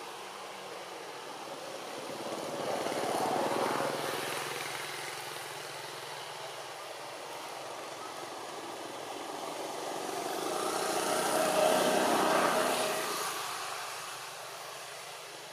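Two motor vehicles passing by, each swelling and fading away: the first about three seconds in, a louder one around twelve seconds.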